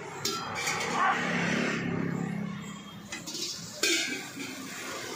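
Metal clanks of utensils and pans at a street-food stall's wok station, a few sharp strikes with the loudest about four seconds in. Under them runs a steady background of street noise, with a low hum in the first half.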